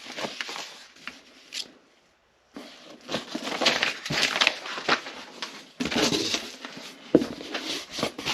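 Packing material rustling and crinkling as things are handled in a box, with a short near-silent pause about two seconds in, then denser, louder rustling.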